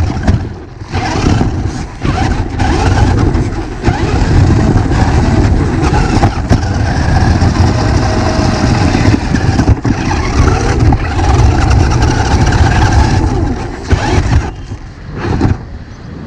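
Electric RC rock-crawler car being driven, its motor whine wavering up and down in pitch with the throttle over the noise of its tyres on the ground, briefly dropping away a couple of times.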